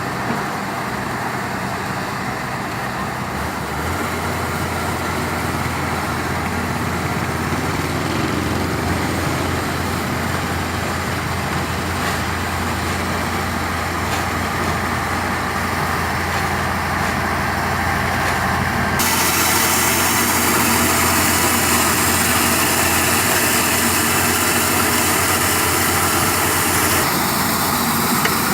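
Heavy diesel engines of road-construction machinery running steadily. The sound changes abruptly twice, getting louder and hissier about two-thirds of the way through and shifting again near the end.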